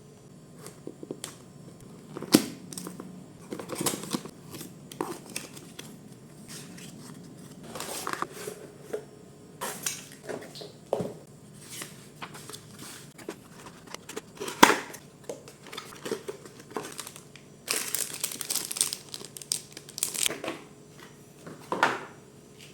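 Packaging handled while unboxing a Garmin GPSMAP 67: irregular crinkling and tearing with scattered sharp clicks and knocks, busiest about three-quarters of the way through.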